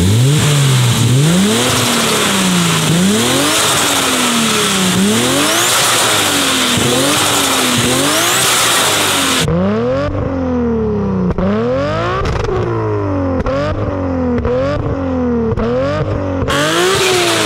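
A Toyota Supra MK4's heavily tuned turbocharged 2JZ inline-six pulls hard and revs up, over and over, about every second or two, with the pitch dropping at each shift or lift. Several sharp cracks come in the second half.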